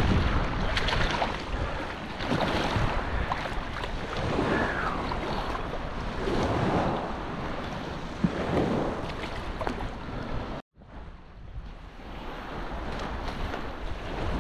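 Wind buffeting the microphone over small waves lapping in shallow water. The sound cuts out completely for a moment about two-thirds of the way through.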